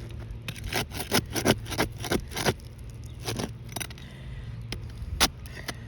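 Asphalt roof shingles being worked with a hand tool: a quick run of sharp scrapes and crackling clicks in the first couple of seconds, then a few single clicks.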